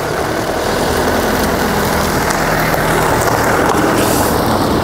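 A car driving past close by: engine and tyre noise that builds up and is loudest as it passes, about three to four seconds in.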